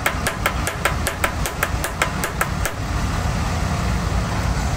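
Small hammer tapping rapidly on a steel tractor-gearbox part, about five taps a second, stopping about two and a half seconds in. A steady low rumble runs underneath.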